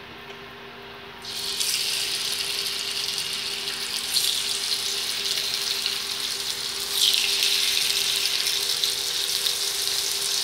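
Marinated fish pieces sizzling as they are laid into hot mustard oil in a flat pan. The sizzle starts suddenly about a second in and grows louder again about two-thirds of the way through as more pieces go in.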